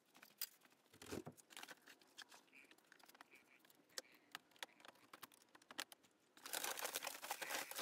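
Faint scattered clicks and crinkles from a cage section being emptied. About six and a half seconds in, a louder stretch of crinkling and rustling starts as the sellotaped Corex (corrugated plastic) cage liner is handled.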